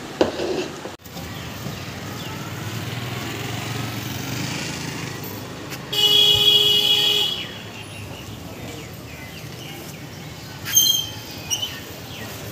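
Road traffic noise with a single long vehicle horn honk about six seconds in, lasting just over a second. Short high-pitched chirps come near the end.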